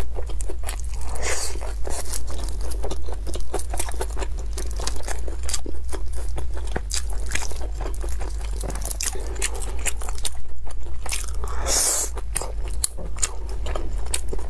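Close-miked chewing and biting of blood sausage and spicy pickled cabbage: a dense, irregular run of small wet clicks and crunches from the mouth, over a steady low hum.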